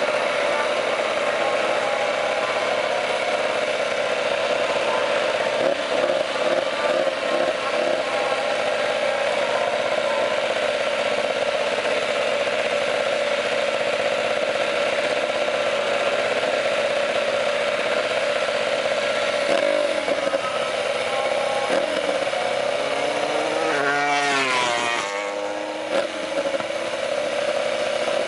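Racing motorcycle engine held at high, nearly steady revs, then dropping and climbing in quick sweeps of pitch near the end, as with throttle blips and gear changes.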